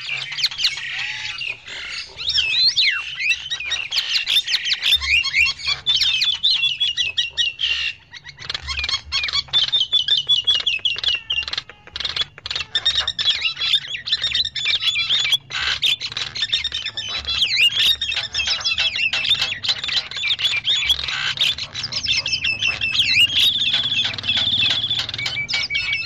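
Javan mynas (jalak kebo) calling noisily, a lure recording: an unbroken chatter of harsh squawks, clicks and quick whistles, with a held whistle near the end.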